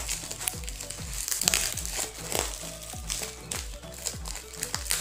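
Bubble wrap crinkling and crackling as it is pulled and unwrapped from a plastic bottle by hand, over background music with a steady beat.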